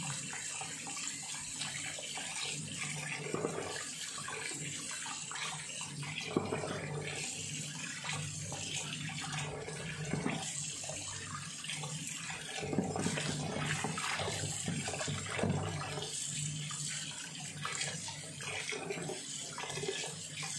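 Kitchen tap running into a plastic basin of raw chicken feet in a steel sink, with irregular splashing and sloshing as hands rub and rinse the feet.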